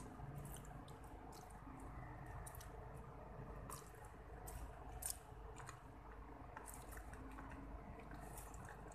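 A person chewing a mouthful of spaghetti: faint, wet smacking and squishing mouth sounds in irregular clicks, with one sharper click about five seconds in.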